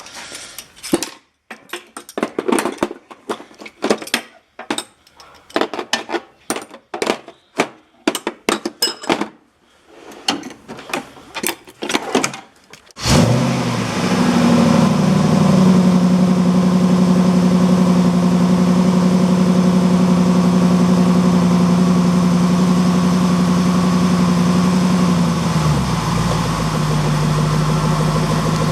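Irregular clatter and knocks, then about halfway through a Jaguar's engine starts and settles into a steady idle, its pitch stepping down slightly near the end.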